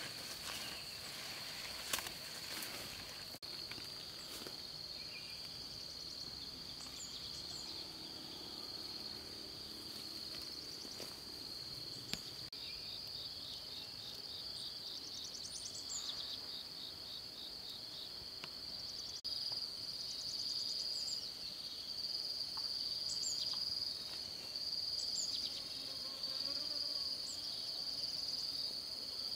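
Steady high-pitched drone of insects, crickets or cicadas, with a few faint high chirps over it and a couple of short knocks. It grows a little louder about two-thirds of the way through.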